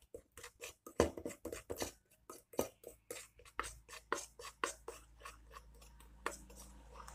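Metal spoon clicking and scraping against a metal bowl as a wet paste is mashed and stirred, in quick repeated strokes of about five a second that thin out over the last couple of seconds.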